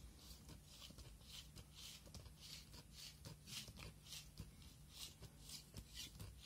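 Faint, short scratches of a craft knife blade cutting a small circle out of paper, about two to three strokes a second.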